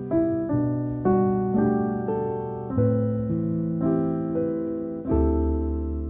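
Background music: slow piano chords, each struck and left to fade, a new one about every half second, with a deeper chord about five seconds in.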